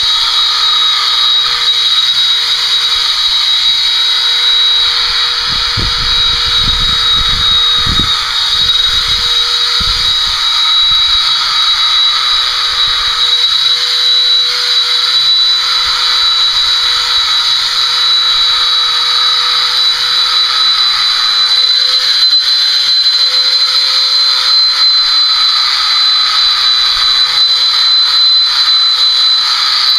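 Electric horse body clippers running steadily with a high whine that wavers slightly in pitch as the blades move through the coat. A few low thumps come about six to ten seconds in.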